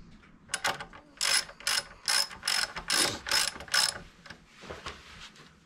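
Hand ratchet clicking through about ten short, evenly paced strokes, two to three a second, as it runs a greased titanium bolt into a motorcycle's front brake caliper. The strokes stop about four seconds in.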